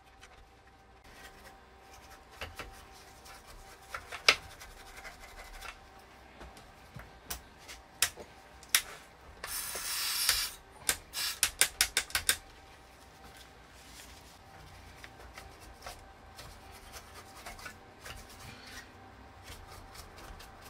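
Cloth and brush rubbing on an old circuit board, with scattered clicks and taps. Near the middle a spray can gives a hiss of about a second onto the board, followed by a quick run of clicks.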